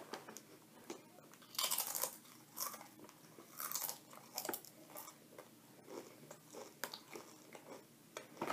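Crunching and chewing of a seasoned corn tortilla chip: a few crisp crunches, the loudest about two seconds in, then softer, irregular chewing.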